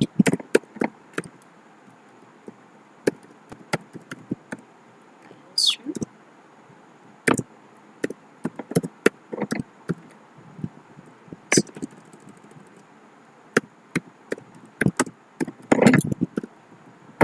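Typing on a computer keyboard: irregular single keystroke clicks in short runs with pauses between, as code is entered.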